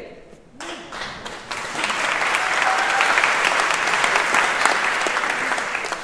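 Audience applauding, swelling about a second and a half in and fading away near the end.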